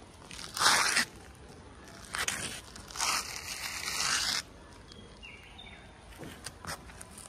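A grey Persian kitten, fur puffed and back arched, hissing defensively three times: the first hiss, about half a second in, is the loudest and the last is the longest. A few faint ticks follow near the end.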